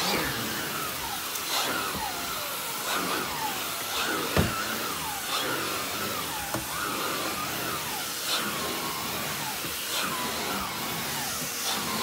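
Numatic Henry HVR200 vacuum cleaner (620 W single-speed motor) running, its air-driven Airobrush turbo head being worked over carpet. The motor's whine dips and rises again and again as the suction load changes. A single sharp knock comes about four and a half seconds in.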